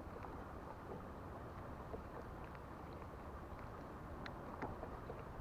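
Steady low wash of wind and water around a fishing kayak on the sea, with a few faint small ticks and clicks.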